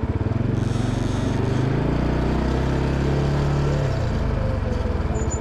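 ATV engine revving up from a pulsing idle as it is put in forward gear. It holds the higher revs for a couple of seconds, then drops back to idle about four seconds in.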